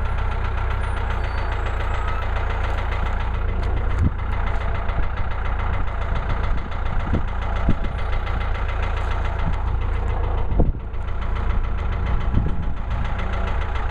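Engine of a portable bandsaw sawmill running steadily, with a few sharp knocks; the loudest comes about three-quarters of the way through.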